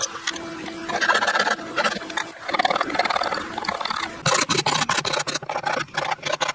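Hand tool scraping and rasping on wood in repeated strokes, turning into a fast run of short strokes from about four seconds in.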